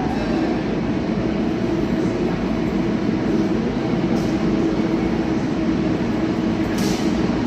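Translohr rubber-tyred tram running, a steady electric motor hum over rolling noise, with a brief hiss near the end.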